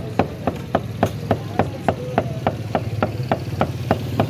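Butcher's cleaver chopping raw beef into mince on a wooden log chopping block: a steady run of sharp blows, about four a second.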